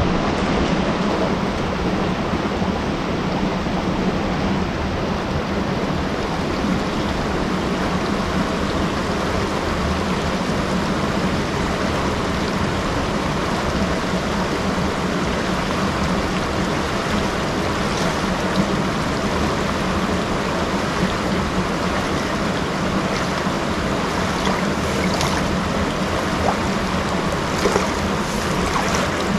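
Shallow rocky river rushing steadily over stones. Near the end, splashes of someone wading through the water come in on top.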